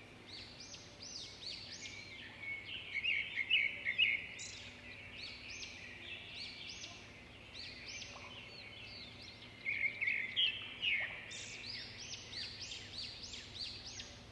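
Several small songbirds chirping together in a dense chorus of quick, high, downward-slurred chirps, with louder flurries about three seconds in and again about ten seconds in.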